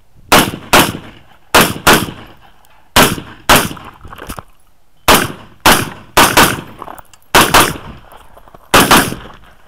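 Rifle shots fired in quick pairs, about a dozen sharp cracks in six close groups, with short pauses between the groups.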